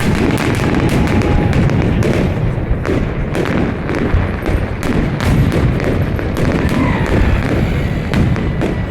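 Fireworks salute: a rapid, irregular run of shell bursts and bangs over a constant deep rumble.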